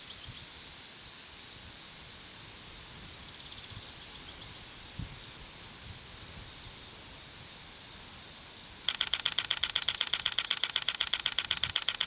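Faint steady outdoor hiss, then about nine seconds in a Canon EOS R7's shutter starts firing in its high-speed continuous burst mode: a fast, even run of clicks that keeps going.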